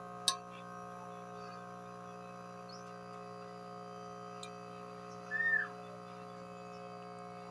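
Steady hum of several fixed tones, with one sharp click just after the start and one short, high, rising-and-falling chirp, like a bird's, about five and a half seconds in.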